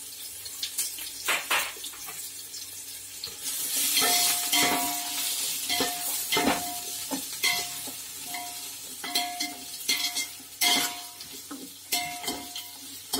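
Sliced onions and green chillies sizzling in hot oil in an aluminium pot while a ladle stirs them. The ladle scrapes and knocks against the pot one or two times a second, and the pot rings briefly after most strokes. The sizzle swells for a couple of seconds about four seconds in.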